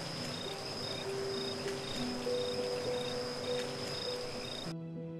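Crickets at night: one a steady high trill, another chirping about twice a second, over soft sustained background music. The cricket sound cuts off abruptly near the end, leaving the music.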